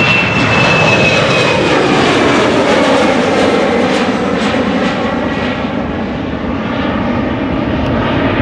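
Airplane engine running loud as the aircraft flies past, a high whine and the engine's pitch falling steadily as it goes by.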